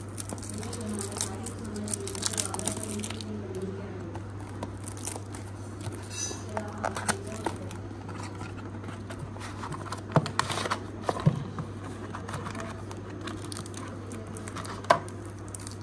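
Cellophane wrap crinkling and tearing as it comes off a small retail box, then the cardboard box and a plastic tray being handled with scattered taps and clicks, over a steady low hum. A sharp click stands out near the end.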